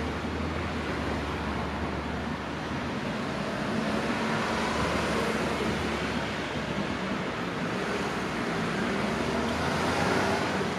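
Steady running noise of passing vehicles at a railway level crossing, an even rumble with no distinct strikes or ringing.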